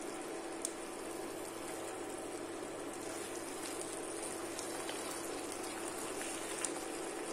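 Tomato and haddock chutney simmering and bubbling steadily in a pan while a wooden spoon stirs it, with a steady low hum underneath. Two faint soft clicks, one near the start and one near the end.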